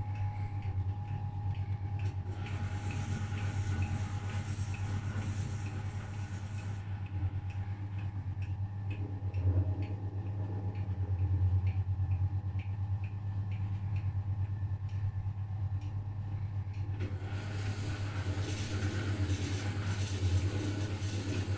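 1968 Scharpf Elektronica 2920 washing machine running its wash cycle: a steady motor hum with a regular light rattle, which comes from the magnetic clutch with its counterweight freewheel. A hissing noise joins about two seconds in, stops around seven seconds, and returns near the end.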